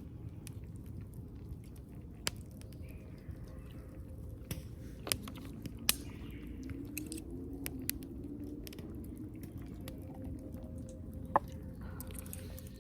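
Small wood fire crackling in a compact fire grill: sparse, sharp pops and clicks, a few louder ones, over a low steady rumble.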